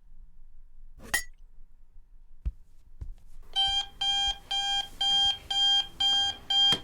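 Electronic alarm beeping, about two beeps a second, starting about three and a half seconds in and cut off by a sharp click right at the end. A click and a soft thump come earlier.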